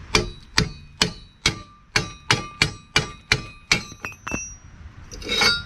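A hammer striking a steel part about a dozen times, two to three blows a second, each blow a ringing metal clang, knocking the piece loose to take it off.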